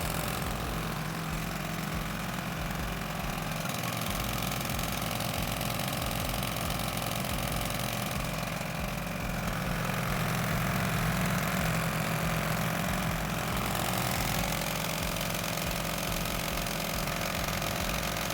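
An engine-driven water pump unit running steadily, a little louder about two thirds of the way through, then cutting off suddenly at the end.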